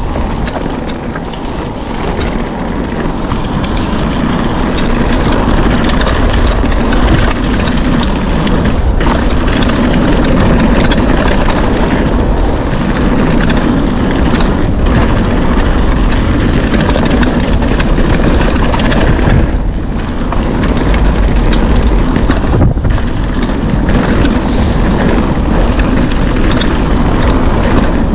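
Wind rushing over the microphone and tyres rolling on the trail as a full-suspension mountain bike descends at speed, with frequent sharp clicks and rattles from the bike over bumps. The rush builds over the first few seconds as speed picks up and eases briefly about two-thirds of the way through.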